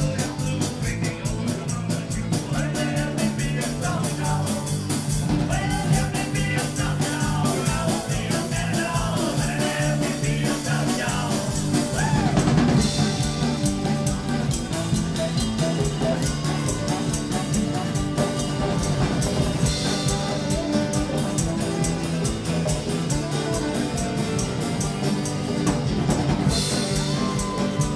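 Live band playing a full-ensemble jam: a drum kit keeps a fast, steady beat under acoustic guitar and singing.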